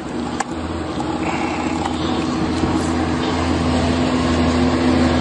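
A steady low mechanical hum with a steady tone in it, and a single sharp click about half a second in.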